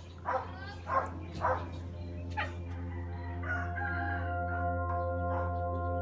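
A rooster crowing, a string of short falling syllables in the first two and a half seconds, over a steady low hum. From about halfway, sustained steady tones like a music drone come in and hold.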